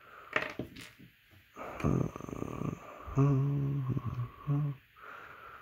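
A low voice making a rough, growling hum, then a steady hummed "hmm" and a short second one. Light clicks of plastic miniatures being handled near the start.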